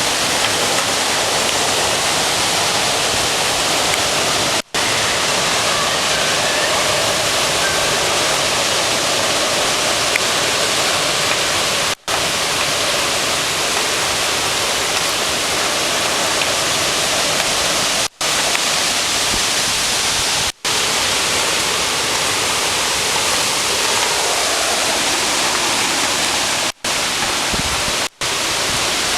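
Strong hurricane wind blowing, a loud steady rush of noise. The sound cuts out for an instant six times.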